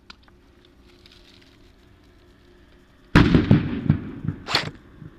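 A sudden burst of loud bangs and pops about three seconds in, several strikes in quick succession, then one more sharp crack about a second and a half later, over a faint outdoor background.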